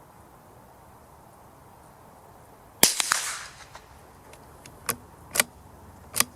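A .22LR CZ 457 bolt-action rifle firing a single Eley high-velocity hollow-point round, a sharp crack with a short echo about three seconds in, loud next to subsonic ammunition. Several smaller sharp clicks follow over the next few seconds.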